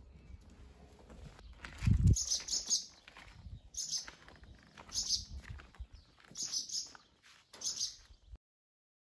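Small birds chirping in short high bursts, five or six times, with a dull thump about two seconds in; the sound cuts off near the end.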